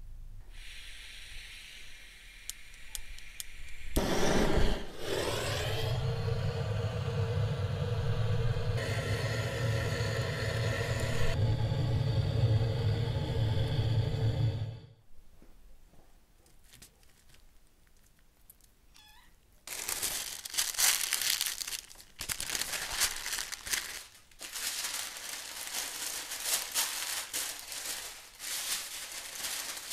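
A propane gas burner lights with a rising whoosh and burns steadily with a low hum and hiss for about ten seconds, then cuts off. Later, parchment paper crinkles and rustles as it is folded by hand.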